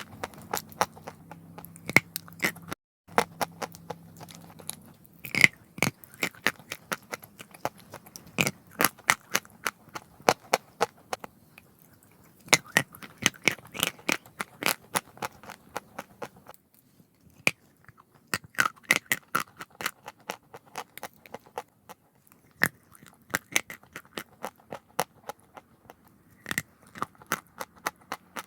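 Close-up crunching and chewing of chalk: runs of sharp, crackling crunches as pieces are bitten and ground between the teeth, broken by short pauses.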